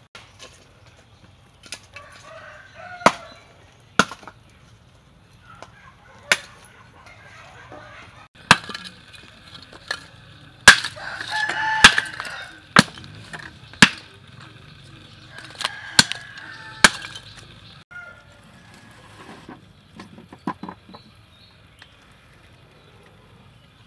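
About a dozen sharp, separate knocks of a heavy knife striking, the blade breaking up lumps of charcoal and chopping on a wooden board, loudest near the middle. Chickens cluck and call behind the knocks.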